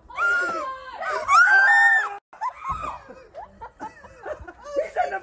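Two long, high-pitched human screams, cut off suddenly about two seconds in, followed by softer laughter and murmured voices.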